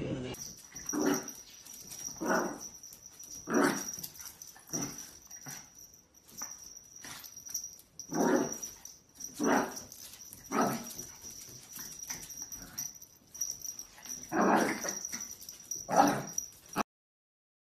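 Chihuahua barking in single barks about a second apart, in runs with a couple of short pauses.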